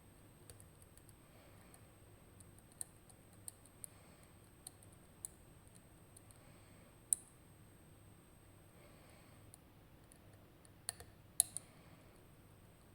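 Light, irregular metallic clicks and ticks of a lock pick working the pins inside a RUKO Garant high-security lock, a sharper click about seven seconds in and a quick cluster of clicks near the end.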